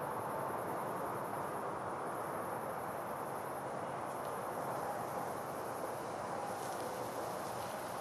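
Crickets trilling steadily in a high band over a steady rush of river water.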